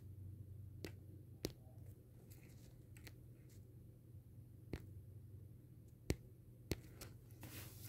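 Quiet room with a low steady hum, broken by about six sharp, separate clicks and a short hiss near the end.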